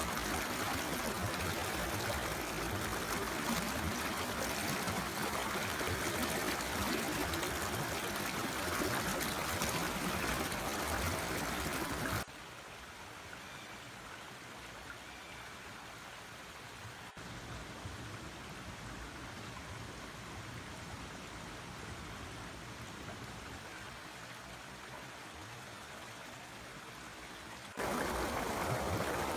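Water of a forest stream flowing in a steady rush. It turns abruptly quieter about twelve seconds in and jumps back to full loudness near the end.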